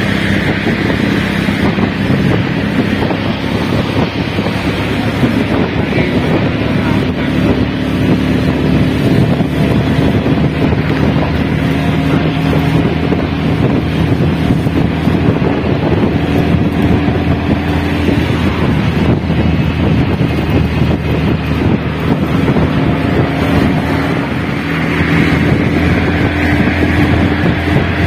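Steady engine and road noise from inside a moving vehicle travelling at road speed, with a low engine hum that drifts slightly in pitch and wind rushing over the microphone.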